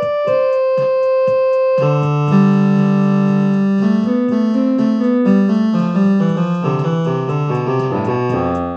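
Electronic keyboard playing: thin single notes at first, then from about two seconds in a fuller passage with a bass line moving under the melody.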